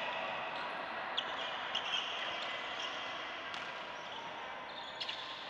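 Badminton rackets striking shuttlecocks: several sharp hits over the steady background noise of play on neighbouring courts.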